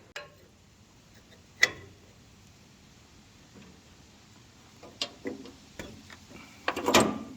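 Hand tools and metal parts clinking and knocking as they are picked up and handled on the workbench: one loud clink about one and a half seconds in, a few lighter knocks later, and a cluster of clatter near the end.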